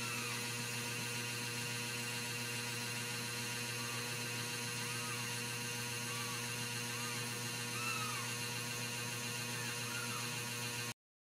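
Very young Ragdoll kittens giving short, faint mews, about ten of them scattered through, each rising and falling in pitch, the loudest about eight seconds in. A steady electrical hum runs underneath, and the sound cuts off abruptly near the end.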